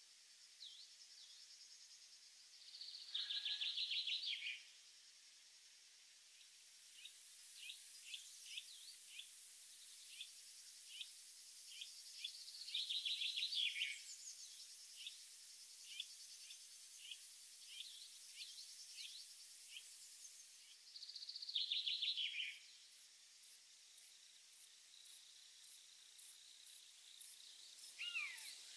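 Countryside ambience of birds and insects. A songbird sings a short, loud, trilled phrase three times, several seconds apart, over the faint high buzz and chirping of insects. Near the end the insects chirp in an even rhythm.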